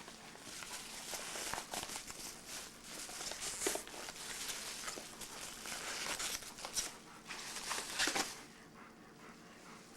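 Packaging being handled: irregular crinkling and rustling of paper and plastic with sharp little crackles, dying down near the end.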